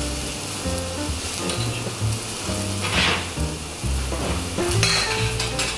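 Red deer fillet sizzling as it fries in a pan, over background music with held bass notes.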